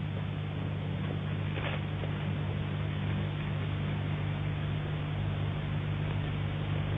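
Steady low electrical hum with hiss: the background noise of an old, worn film soundtrack, with a faint brief rustle about one and a half seconds in.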